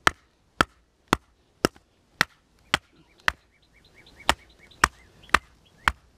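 Sharp knocks, about two a second, of batoning a Wolf's Head Forge Werewolf EDC knife through a knotty piece of wood to split it. There is a brief pause a little past halfway.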